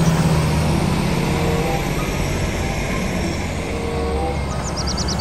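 Large diesel engine of a Liebherr 974 crawler excavator running steadily, a low drone under a wash of mechanical noise.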